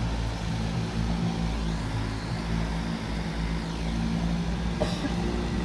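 Off-road 4x4's engine running steadily as the vehicle works through deep mud, with one short click about five seconds in.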